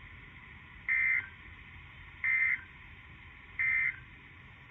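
EAS (SAME) end-of-message data bursts: three identical short, buzzy digital chirps, evenly spaced about a second and a half apart, marking the end of the alert.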